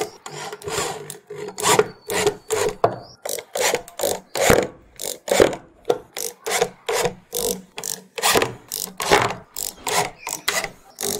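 Corded electric drill driving wood screws through a subwoofer's frame into a plywood box, run in short pulses of the trigger, about two a second, with the screw grinding into the wood.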